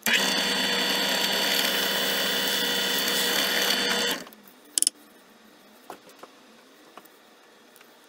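Drill press running as its bit bores a hole through an oak dowel, a loud, steady whine with several tones that stops about four seconds in. Two quick sharp clicks follow shortly after.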